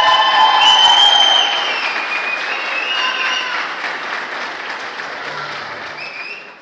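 Crowd applauding, with long cheering shouts over the clapping; loudest at first, then easing and fading out at the very end.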